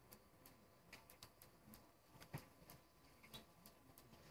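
A cat lapping water from a ceramic bowl: faint quick clicks of the tongue, about three a second, slightly irregular, one a little louder about two and a half seconds in.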